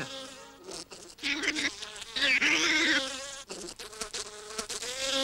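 Cartoon sound effect of a buzzing flying insect: a wavering whine whose pitch slides up and down, loudest about one to three seconds in, with short clicks scattered through it.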